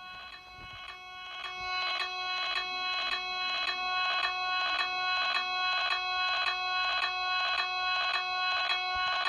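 Electronic alarm sounding a steady, harsh multi-tone signal that pulses about twice a second, swelling louder over the first two seconds, like a lockdown alarm.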